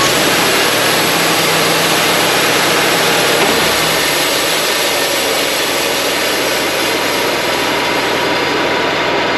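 Wood-Mizer LT35 portable sawmill running steadily and loudly, its band blade sawing through a white pine log.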